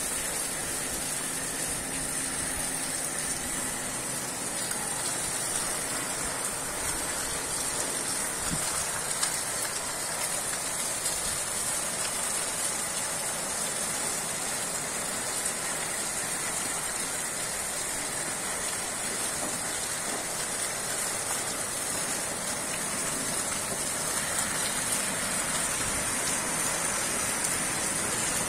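Heavy tropical-storm rain falling steadily, a constant even hiss of rain on roofs and a flooded street.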